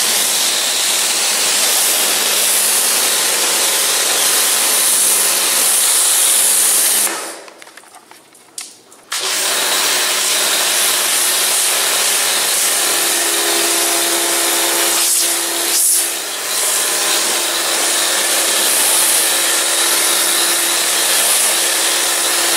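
Kärcher K2 electric pressure washer running, its motor humming steadily while the high-pressure water jet hisses against a car's bodywork. About seven seconds in, the motor stops for about two seconds, then starts again and runs on.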